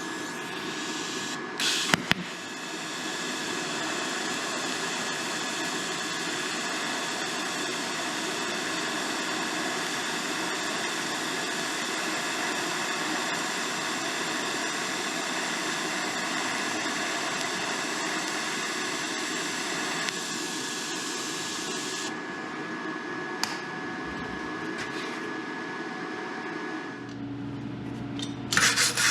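Aerosol spray paint can hissing in a long, steady spray, with a couple of sharp clicks about two seconds in.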